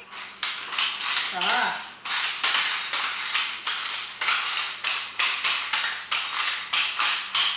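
Toddler's plastic roller skates clattering on a hard wooden floor as he shuffles and steps: a string of irregular sharp knocks. A brief toddler's voice comes in about a second and a half in.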